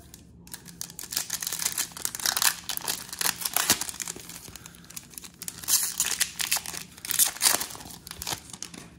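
Foil wrapper of a trading-card pack crinkling and tearing as it is ripped open by hand, in a run of crackling bursts starting about half a second in.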